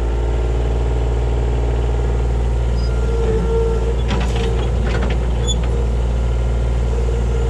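Kubota KH-60 mini excavator's diesel engine running steadily under work, with a higher whine coming and going and a few knocks about four to five seconds in.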